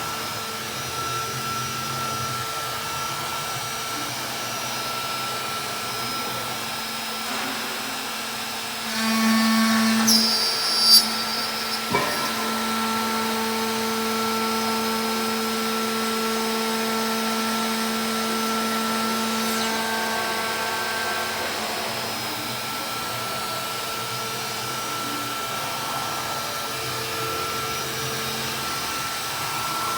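Aluminium-profile CNC drilling and milling machine running with a steady machine whine. About nine seconds in it grows louder for a couple of seconds and gives a brief high squeal. A sharp click follows about a second later.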